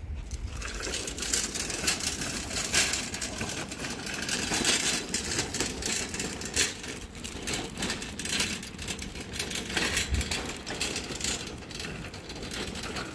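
Wire shopping cart rattling steadily as it is wheeled over rough concrete: a dense stream of metallic clicks and clatters.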